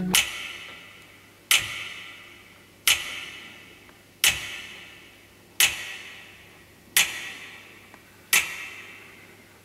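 A sharp, bright click struck seven times at an even pace, about one every 1.4 seconds, each with a long reverberant fade.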